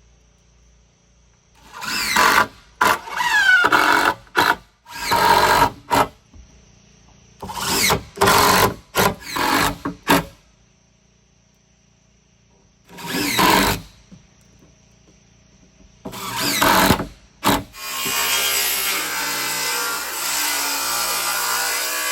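A hand-held power tool run in repeated short bursts, its motor speeding up and winding down each time, then held running for several seconds near the end.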